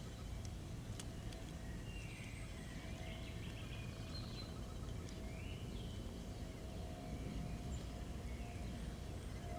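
Woodland ambience: birds calling a few times, mostly in the first half, over a steady low rumble.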